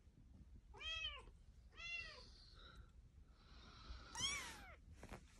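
A kitten meowing three times: short calls that rise and fall in pitch, the third one higher and longer.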